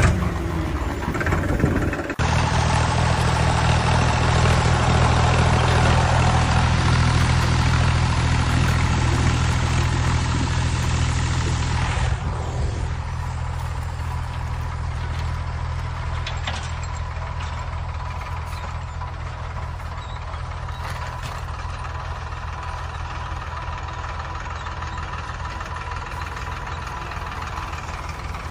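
An engine running steadily at idle, with a low, even pitch. The sound shifts about two seconds in and gets a little quieter about twelve seconds in.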